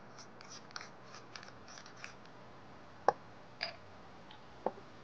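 Wooden pepper mill grinding peppercorns over a bowl: a quick run of faint, gritty clicks. About three seconds in comes one sharp knock, then two lighter knocks.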